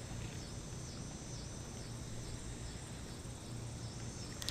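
Faint outdoor ambience: insects trilling steadily and thinly at a high pitch over a low, even hum.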